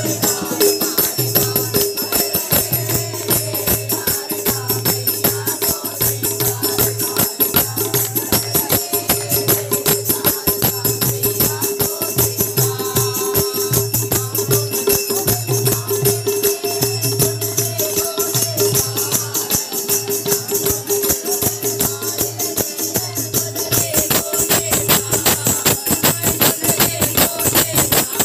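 Live devotional bhajan: men singing together over a dholak drum keeping a steady low beat, with dense, fast jingling from small hand cymbals and clapping. A steady held tone sounds underneath.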